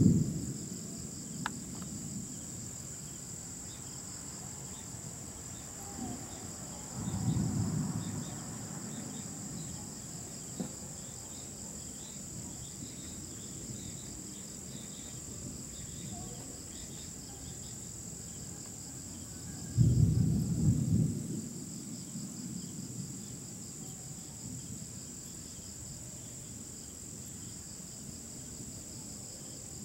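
Crickets chirring steadily at night, with distant thunder rumbling at the very start, again about seven seconds in, and most loudly about twenty seconds in.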